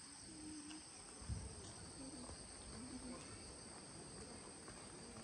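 Quiet countryside ambience: a steady high insect drone, with faint distant voices now and then.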